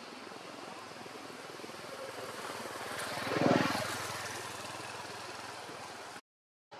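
An engine passes by, swelling to its loudest about three and a half seconds in with a low, fast-pulsing rumble, then fading away. The sound cuts out completely for half a second near the end.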